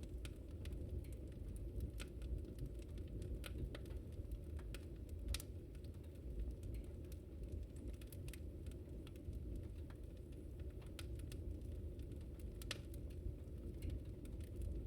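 Wood fire burning: a steady low rush of flames with irregular sharp crackles and pops, two louder snaps about five and twelve seconds in.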